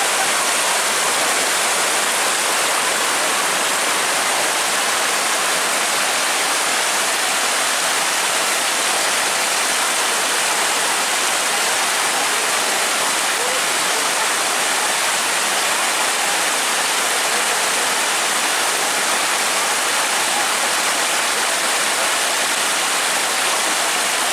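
Muddy flash-flood water rushing fast and churning over a flooded path and around tree roots: a loud, steady, even rush of turbulent water.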